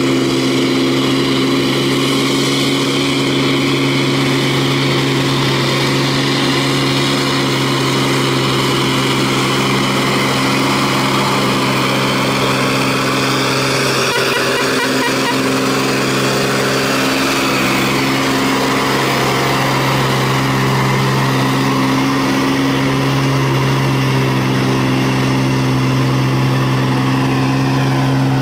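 Diesel engine of a Scania logging truck hauling a full load of logs, running with a steady drone as the truck drives by. Road and tyre noise swells around the middle of the pass.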